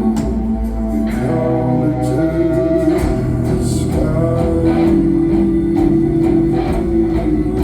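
A live band playing, with guitars over bass and a steady beat, heard as full music throughout.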